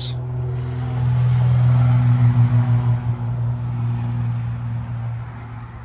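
A steady low engine-like hum that swells louder about a second in and eases off again after about three seconds.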